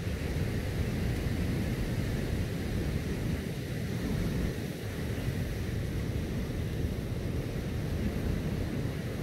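Steady wind buffeting the microphone as a low rumble, mixed with the wash of surf.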